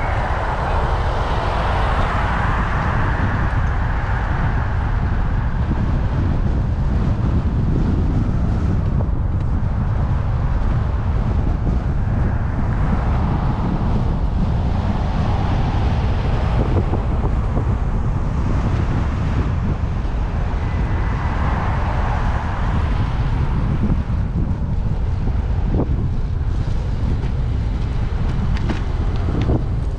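Steady low wind rumble on the microphone of a camera moving along a city street, with road traffic swelling and fading a few times.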